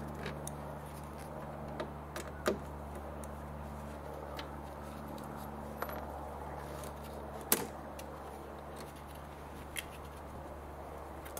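Hand tool work on a car door speaker: a Torx screwdriver clicking and knocking against the screws and plastic speaker mount as it is unscrewed and lifted out of the door. There are scattered sharp clicks, with the loudest knocks about two and a half and seven and a half seconds in, over a steady low hum.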